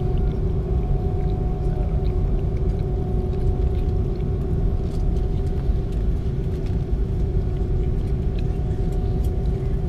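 Steady low rumble of an Airbus A330-200 taxiing, heard from inside the cabin by the wing, with a constant hum from its Rolls-Royce Trent 700 engines at two steady pitches.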